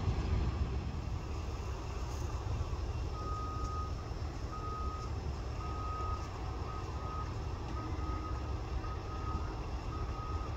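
A vehicle's reversing alarm beeping at one high pitch, starting about three seconds in and repeating about once a second, over a steady low rumble.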